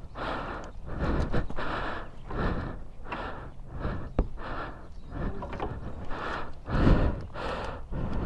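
Person panting close to the microphone, a quick, heavy breath about every half second to a second, with a sharp click a little after four seconds in.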